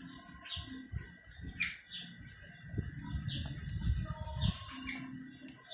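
Small birds chirping repeatedly in short notes that fall in pitch, over the soft crinkle and rustle of a wet banana leaf being folded by hand.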